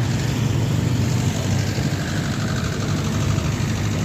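A motor vehicle engine running steadily at low revs, a constant low hum amid street traffic noise.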